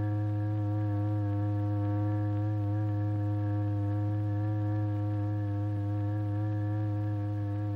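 A steady low electronic tone with a stack of fainter overtones, unbroken: the vibration tone driving the membrane in a cymatics experiment.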